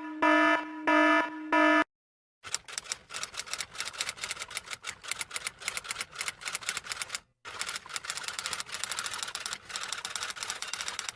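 A few short electronic beeps, then, after a brief gap, fast typing: a dense run of keystroke clicks with one short pause midway.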